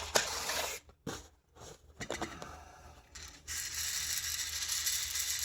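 Small metal primers rattling and scraping in a plastic primer flip tray as it is shaken to turn them all the same way up. It begins with a few scattered clicks, goes quieter, then settles into a steady, even rattle about halfway through.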